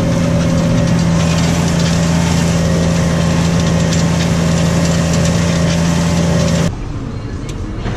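New Holland T6.155 tractor engine running steadily under load while ploughing. About two-thirds of the way through it cuts off abruptly to a quieter, duller engine hum.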